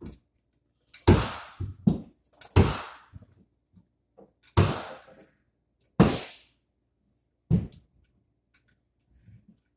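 A series of about six sharp knocks, irregularly spaced over several seconds, each with a short ringing tail.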